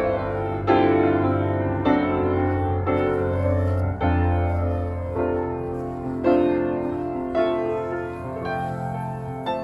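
Background piano music: slow notes struck about once a second, each fading away, over a held low bass note.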